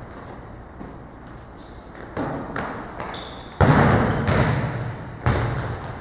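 Volleyball spike: quick approach footsteps, then a loud smack of hand on ball a little past halfway, followed by the ball bouncing twice, each hit echoing off the gym walls.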